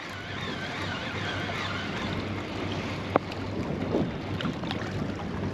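Steady wind on the microphone and water moving around a small boat, with a single sharp click about three seconds in.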